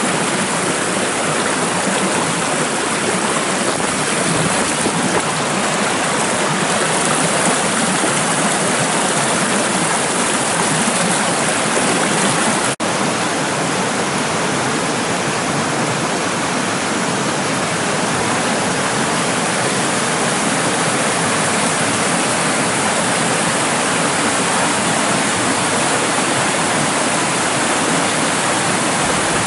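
Rainwater running fast down a normally dry rambla (Mediterranean gully) after heavy rain, rushing and splashing over stones in a steady, dense rush. The sound cuts out for a split second about halfway through.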